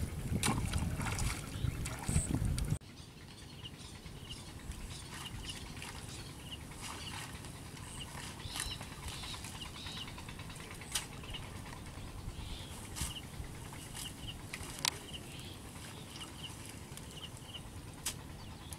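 Water sloshing and splashing as a person wades and works through a flooded rice paddy. About three seconds in, it cuts to a quieter outdoor background with a small bird chirping again and again and a few sharp splashes or snaps.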